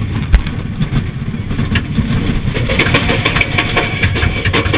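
Wind buffeting the wrist-mounted camera's microphone over the rumble and rattle of a steel roller coaster train running along its track, with sharp knocks throughout. The noise grows brighter and fuller from about halfway through.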